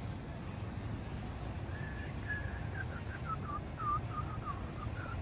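Low steady rumble of a river cruise boat's engine. From about two seconds in, a string of short whistled notes steps downward in pitch.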